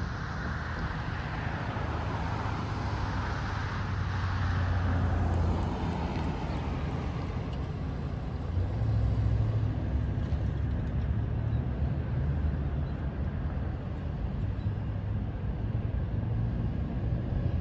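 Road traffic passing a railroad grade crossing: a car drives by, then a pickup truck about eight seconds in, over a steady low rumble.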